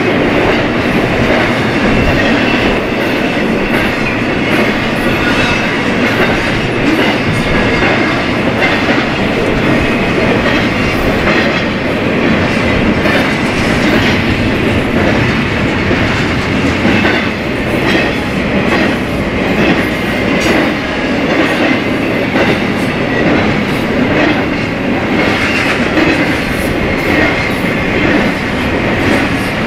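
BNSF freight train cars rolling steadily past at speed: a continuous loud rumble with the clickety-clack of wheels over the rail and a faint high wheel whine.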